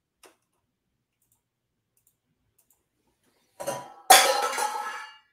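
Near silence, then about three and a half seconds in a brief rustle followed by a sharp knock with a short ringing clatter that fades within about a second.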